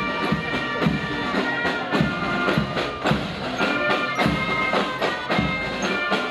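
A German Spielmannszug, a marching fife and drum corps, playing a march: high fifes carry the tune over a steady beat of snare drums.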